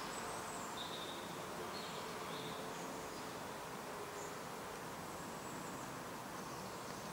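Quiet outdoor background by a pond: a steady faint hiss with a few faint, short high chirps.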